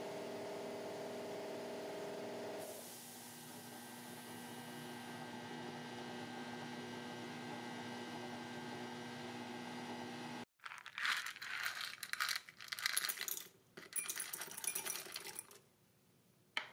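Steady electrical hum of a powder coating gun system for about ten seconds. Then the hum cuts off and several seconds of loud, irregular metallic clinking follow as small steel screws drop into a glass beaker of liquid.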